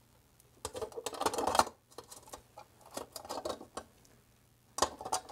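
A metal ceiling light fixture being handled up against the ceiling and onto its mounting screws: irregular clicks, light knocks and scraping of the metal pan. There is a busy cluster about a second in and another sharp one near the end.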